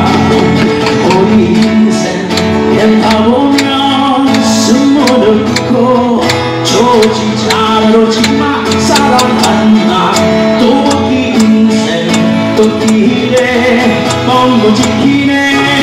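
Live acoustic band playing a song, with guitar and a steady beat, and a male voice singing at times.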